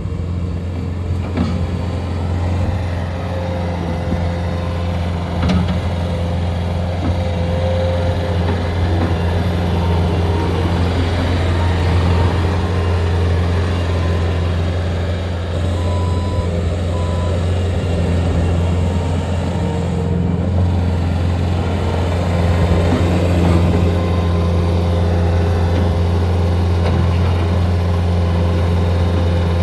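Bobcat S550 skid steer loader's diesel engine running steadily with a constant low hum. Two short faint beeps sound a little past halfway.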